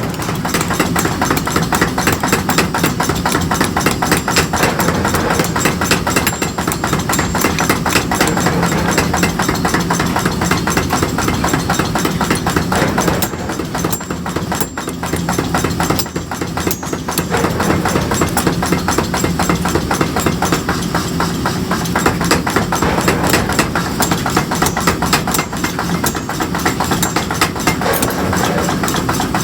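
A machine running with a steady low hum and a fast, continuous clatter, dipping briefly about halfway through.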